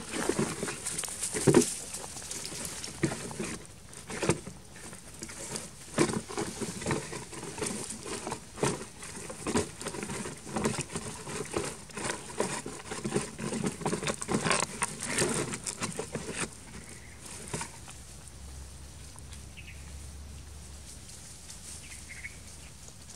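Irregular scraping, tapping and rustling as a macaque handles an empty plastic jerrycan on dry leaf litter. The sounds die away about two-thirds of the way through.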